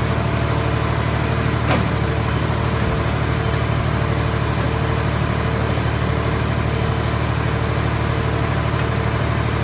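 Movable car baler's engine running steadily at a constant low drone, with one short click about two seconds in.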